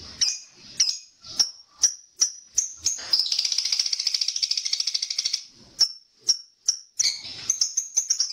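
Lovebird calling: a run of sharp, high chirps, then about two seconds of rapid, continuous chattering trill, the 'ngekek' that lovebird keepers train for. A few more chirps follow, and another trill starts about a second before the end.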